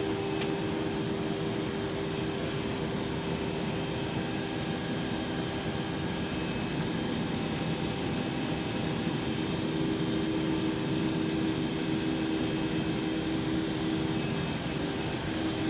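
Steady machine-shop hum: machinery running with a constant noise and two steady low tones, one of which briefly drops out near the end.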